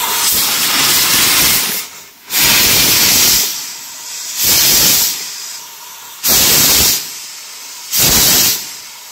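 Donkin steam steering engine hissing as steam escapes. A steady hiss breaks off about two seconds in, then four loud bursts of steam hiss follow at even intervals, roughly every second and a half, with a softer hiss between them.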